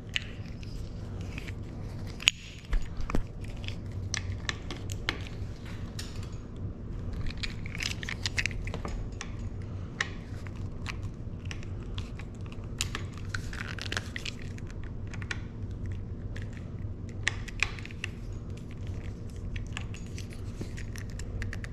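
An Allen wrench working the bicycle stem's top-cap and pinch bolts: small, irregular metallic clicks and ticks as the tool is seated and turned. A steady low hum runs underneath.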